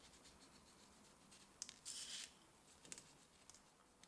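Near silence with a few faint ticks and a brief soft hiss about two seconds in: sesame seeds sprinkled by hand, landing on egg-washed dough and parchment paper.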